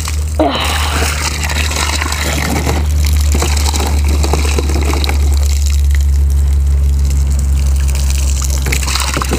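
Water gushing and running out across sandy ground, a steady rush of splashing water over a constant low hum.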